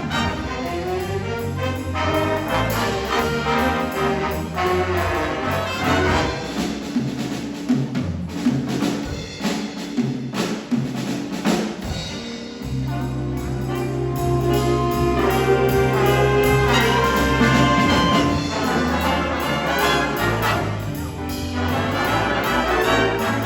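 High school jazz band playing, with the brass section prominent; the full band swells louder about halfway through.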